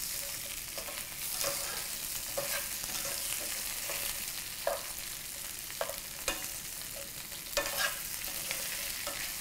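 Shrimp frying in garlic butter in a nonstick pan, sizzling steadily while being tossed with metal tongs, which click and scrape against the pan at irregular moments every second or so.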